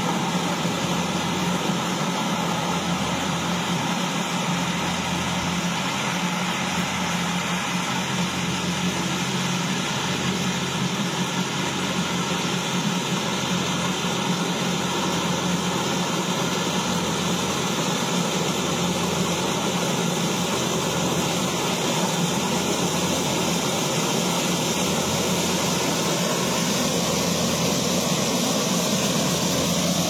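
Kubota combine harvester's diesel engine and machinery running steadily as it cuts standing maize, a constant low hum under an even mechanical noise.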